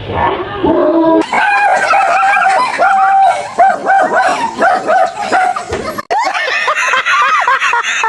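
A dog barking in a rapid run of short, high yaps. About six seconds in, this gives way to people laughing loudly.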